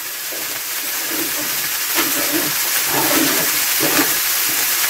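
Mushrooms frying in a pan with a steady sizzle.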